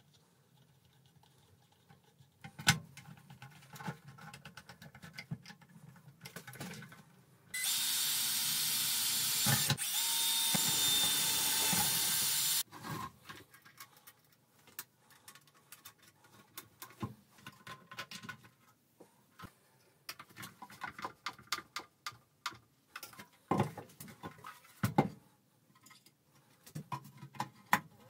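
A cordless drill runs steadily for about five seconds partway through. Around it come scattered clicks and knocks of plastic parts and screws being handled and fitted together.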